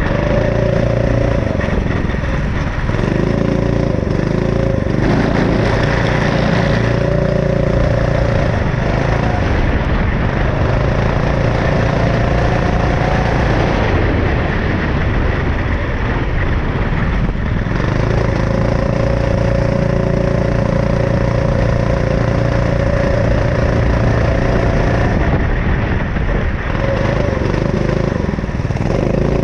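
Go-kart engine at racing speed, recorded close up from the kart's roll bar: the engine note climbs on the straights and drops away briefly for the corners, several times over.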